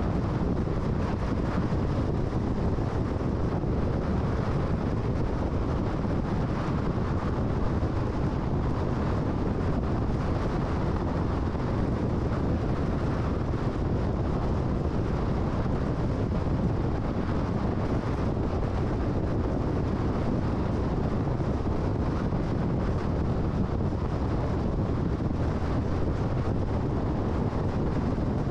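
A car driving along the road: steady, unbroken tyre and wind noise, heavy in the low end.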